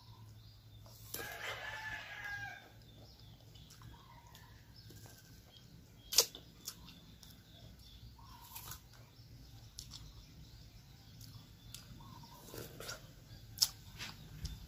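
A rooster crows once in the background, lasting about a second and a half, starting about a second in. Around it are quiet mouth sounds of eating pieces of mango: sharp clicks and lip smacks. The loudest click comes about six seconds in.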